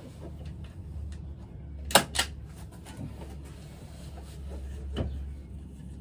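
Two sharp clicks or knocks close together about two seconds in, and a fainter one near five seconds, from something being handled, over a steady low rumble.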